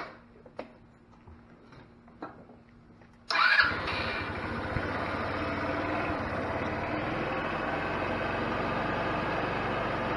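A few light clicks, then about three seconds in the GY6 150cc single-cylinder four-stroke engine of a 2004 Wildfire 150T scooter starts, catches at once and settles into a steady idle. This is the test start just after a valve clearance adjustment, done to check whether the valve tick is gone.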